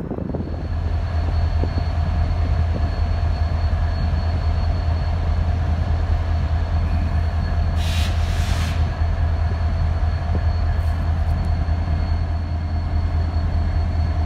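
Diesel-electric locomotives idling: a steady deep hum with a constant whine over it. A brief hiss comes about eight seconds in.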